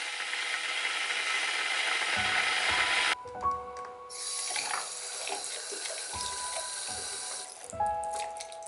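Water running from a tap, shut off suddenly about three seconds in, then running again for a few seconds more.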